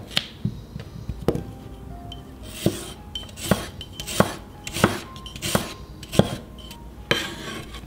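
A cleaver slicing a red onion on a wooden chopping board: about ten sharp knocks of the blade hitting the board, one per slice, settling into an even pace of roughly one every 0.7 s from about three seconds in.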